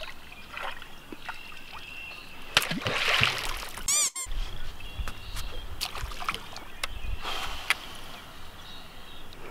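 Open-water ambience from a small aluminium boat: faint bird calls, water lapping and splashing, and a few sharp knocks. A short warbling blip with a brief dropout comes about four seconds in.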